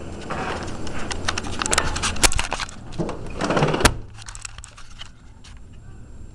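Electrical transformer fire crackling, with rapid sharp cracks and pops; the loudest cracks come about two seconds in and near four seconds, after which it dies down to scattered clicks.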